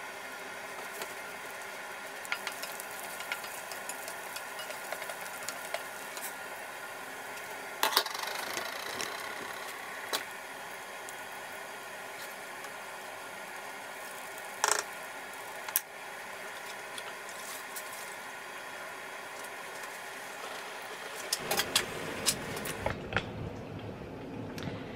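Chopped garlic and chili gently sizzling in olive oil in a frying pan, a steady hiss with many small pops and a few sharper clicks. Near the end, rumbling and knocks of the camera being handled.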